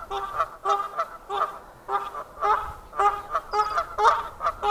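Canada geese honking over and over, a few calls a second, with no break.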